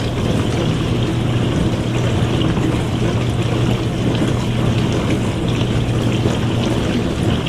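Dishwasher running through a wash cycle: a steady motor hum with water spraying and sloshing inside the tub.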